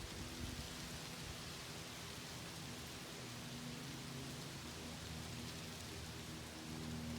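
Wind blowing through autumn tree leaves, a steady rustling hiss that swells slightly near the end.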